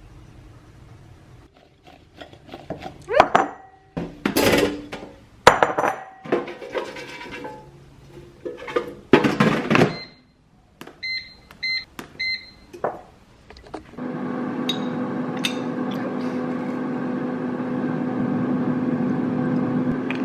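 Knocks and clatter of kitchenware, then three short keypad beeps, and a microwave oven starts running with a steady hum.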